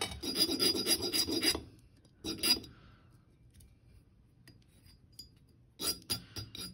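Hand file rasping across the cut end of thin decorative bezel wire held on a steel bench block, in quick strokes, filing the end flat and straight so the seam will close tightly for soldering. The filing runs for about a second and a half, gives one short burst, pauses for about three seconds, then starts again near the end.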